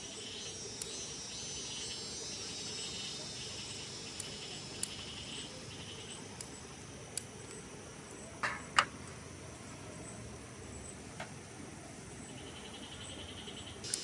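Insects chirping in pulsed trills, strongest in the first half and returning near the end, over a steady low haze. Sharp clicks of metal tongs against the grill grate come now and then, the loudest a pair a little past halfway.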